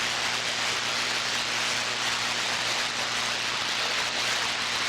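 CB radio receiver hissing with static while no station is transmitting: an even, steady hiss with a faint low hum underneath.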